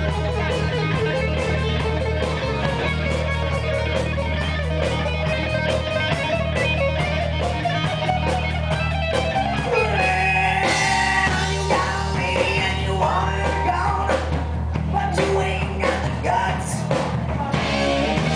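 Live rock band playing: electric guitars, bass guitar and drum kit, with a man singing lead that comes in about halfway through.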